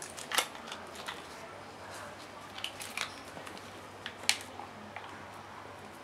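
A brush dabbing and stippling resin into fiberglass cloth on a mold: irregular short taps and clicks, with the sharpest about four seconds in.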